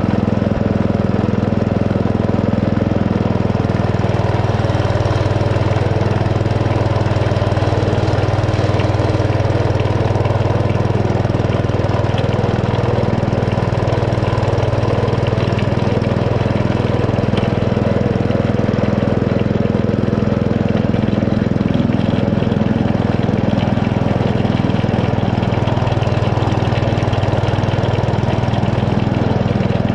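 Small engine of a 7¼-inch gauge miniature railway locomotive running steadily at an even, low pitch, with a rattly mechanical clatter over it.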